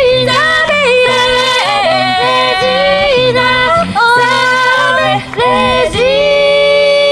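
Small a cappella group singing in close harmony through handheld microphones and a PA, phrase after phrase, until about six seconds in the voices settle onto one long held final chord.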